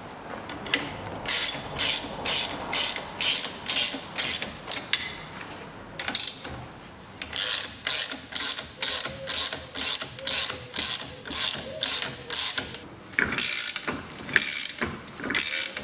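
Ratchet wrench clicking in quick strokes of about two a second, in runs with short pauses, as it turns the threaded rods of screw-type coil-spring compressors to compress a car's front strut spring.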